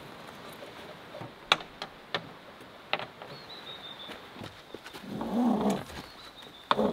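Clicks and knocks of a 270-degree vehicle awning's arms and frame being swung open by hand. There is a louder creaking scrape a little past five seconds and a sharp knock near the end. A bird calls faintly in the background.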